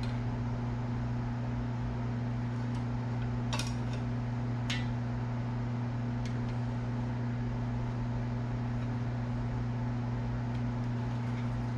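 Steady electric hum of a small motor running, with a few light clicks of small parts being handled, about three and a half, five and six seconds in.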